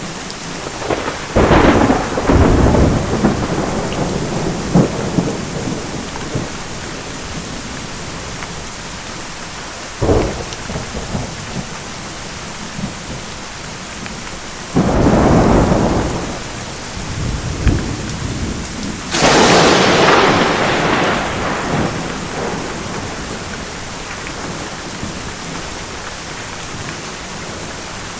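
Steady rain with four thunderclaps: one about a second in that rolls on for a few seconds, a short crack about ten seconds in, a rumble around fifteen seconds, and the sharpest, highest crack around nineteen seconds that rolls away over the next few seconds.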